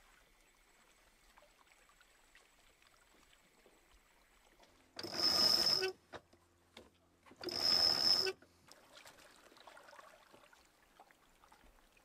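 Sailboat cockpit winch cranked in two spells of about a second each, starting about five seconds in, taking in the stern line run ashore to a tree.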